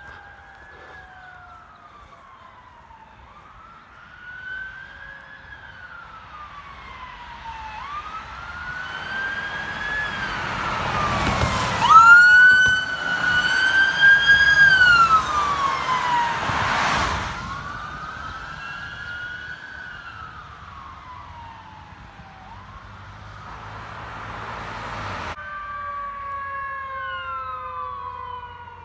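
Emergency vehicle siren on a wail, climbing and falling about every four seconds, growing loud with road noise as the fire department's command SUV drives past about twelve seconds in, then fading. About 25 seconds in, a different siren with several tones at once takes over, falling and then rising again near the end.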